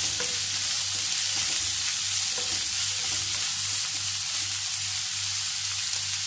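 Chopped onions sizzling in hot coconut oil in a nonstick pan as they are stirred with a wooden spatula: a steady frying hiss.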